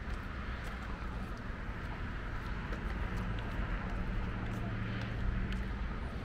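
Footsteps on a concrete trail as scattered light clicks over a steady outdoor background hiss and a low rumble on the microphone.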